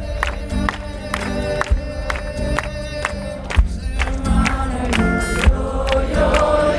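Live band music with a steady drumbeat under held tones, and wordless singing from several voices coming in about four seconds in.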